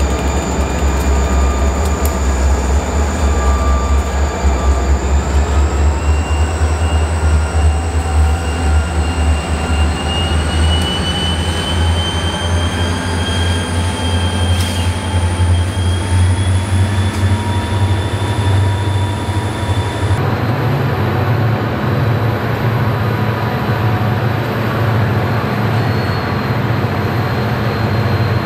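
Wheeling & Lake Erie freight train passing close by: the diesel locomotives' heavy low rumble, then the cars rolling past with a high steady wheel squeal that rises slowly in pitch. About two-thirds of the way in the sound changes abruptly to a steadier rumble of the train running farther off.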